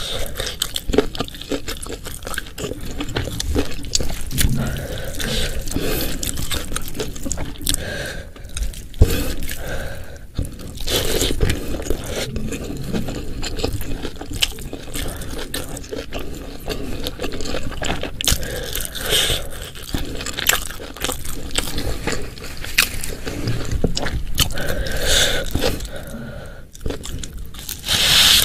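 Close-miked chewing and wet mouth sounds of a person eating, with occasional crunchy bites.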